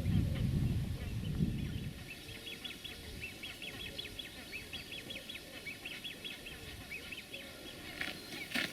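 Wind buffeting the microphone for about the first two seconds, then a long run of quick, high bird chirps and twitters, with a few sharp footfall-like clicks near the end.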